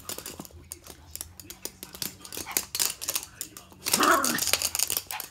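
Toy poodle's claws clicking and scrabbling fast on a hard laminate floor as it paws under a sofa after a stuffed toy, with a short louder voice sound about four seconds in.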